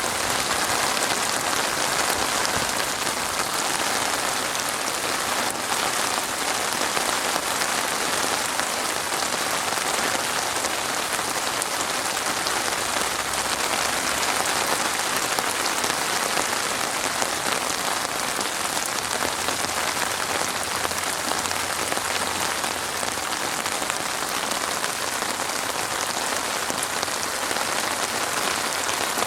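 Steady rain falling on a surface: an even hiss of many drops that doesn't let up.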